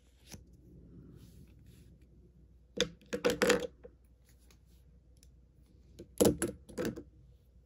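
Plastic markers and then retractable pens set down on a wooden tabletop. Two clusters of sharp clicks and clatter, the first about three seconds in and the second about six seconds in.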